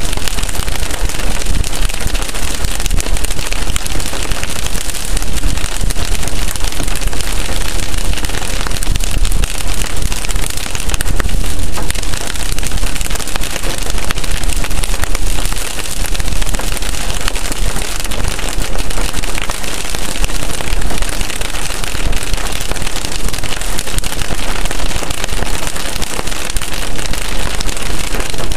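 Rain striking a car's windshield and roof, heard from inside the moving car as a dense, steady patter over the low rumble of tyres on the wet road.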